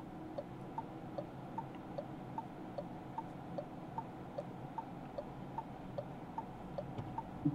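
Renault Megane E-Tech's turn-signal indicator ticking in the cabin, an even tick-tock of about two and a half clicks a second alternating a higher and a lower click. The parking assistant has switched the indicator on itself as it begins an automatic parking manoeuvre.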